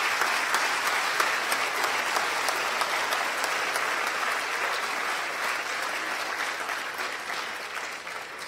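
Audience applauding, a dense patter of many hands clapping that dies away over the last two seconds or so.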